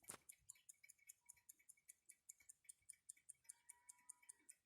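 Alpina pocket watch ticking steadily and faintly, about five ticks a second.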